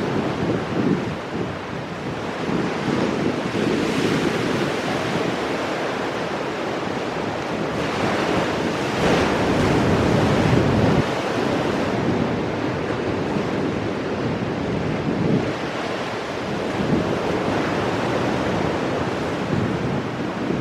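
Ocean waves breaking on rocks, a continuous wash of surf that swells and falls, with one larger wave breaking about nine seconds in. Wind buffets the microphone.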